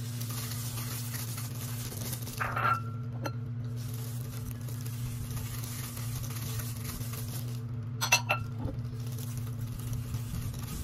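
Diced vegetables tipped from small bowls into a glass mixing bowl, with brief clinks of bowl on bowl about two and a half seconds in and again about eight seconds in. A steady low hum runs underneath.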